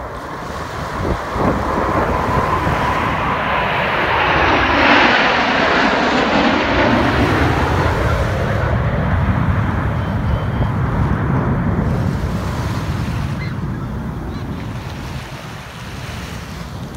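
Jet roar of six F/A-18 Super Hornets flying past low in formation, swelling to a peak about five seconds in with a falling whoosh, then fading slowly into a long rumble as they head away.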